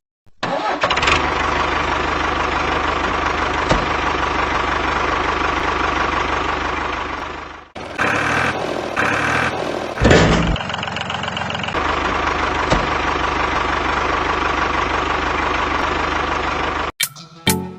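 A steady engine running, interrupted by a different stretch about eight seconds in and a loud knock about ten seconds in, then cutting off suddenly near the end.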